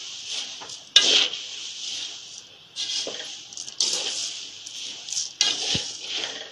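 A long metal spoon stirring dry roasted poha flakes in a large metal pan: rustling, scraping strokes every second or so, with a sharp scrape of metal against the pan about a second in.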